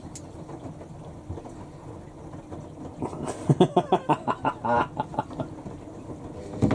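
Front-loading washing machines running through a wash with the drums tumbling. About halfway through, a quick run of about ten short voice-like pitched sounds rises above them for a couple of seconds.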